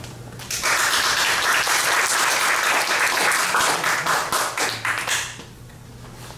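Audience applauding for about five seconds, starting about half a second in and dying away near the end.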